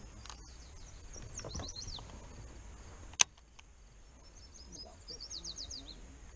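A songbird singing two short runs of quick down-slurred high notes, about a second in and again near the end. A single sharp click, the loudest sound, comes about three seconds in.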